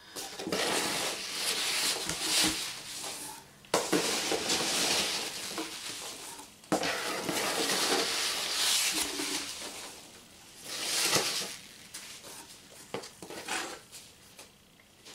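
Hands digging and scooping through a cardboard box full of foam packing peanuts, a dense rustling that comes in several bursts of a few seconds with short lulls between.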